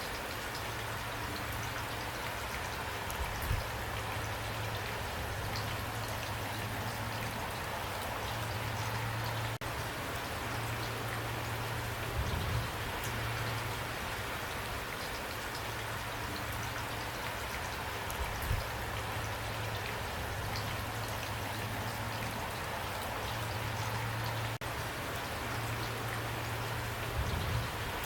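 Steady rain falling, an even wash of drops. Underneath, a low hum comes and goes, and four brief dull thumps are spread through.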